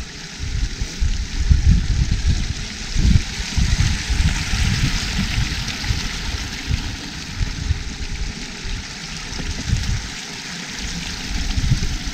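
Shallow water running and trickling over rocky stone trail steps, a steady rushing that is loudest about four to six seconds in, over a low, uneven rumble on the microphone.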